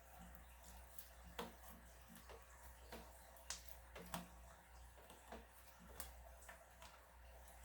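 Slime being squeezed and pressed by hand: faint, irregular sticky clicks and small pops, about a dozen of them.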